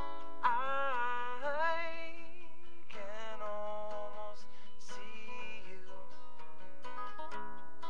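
A solo voice singing a song over plucked guitar, the sung lines coming in about half a second in.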